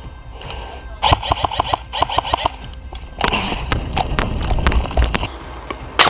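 Airsoft electric rifle firing short full-auto bursts of rapid clicks, about ten a second: one about a second in and another at two seconds. A longer noisier stretch with scattered shots follows, and a sharp loud hit comes near the end.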